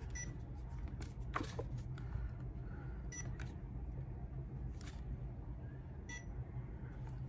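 Short, high beeps from a Feiyu Vlog Pocket 2 smartphone gimbal, about every three seconds, with clicks and knocks from handling as the phone is adjusted in its clamp, the loudest about a second and a half in, over a steady low hum.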